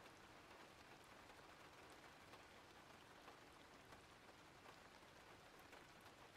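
Faint, steady rain: an even hiss with scattered light drop ticks.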